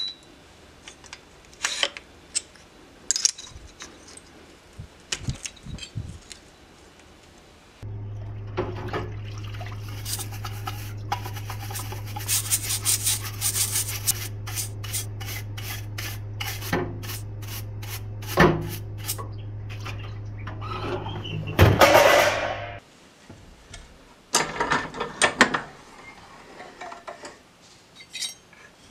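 Light metal clicks and taps of hand tools on the engine. Then a parts-washer pump hums steadily for about fifteen seconds while an engine part is scrubbed with a brush, in a quick run of rasping strokes. The hum cuts off suddenly and more metal clinks follow.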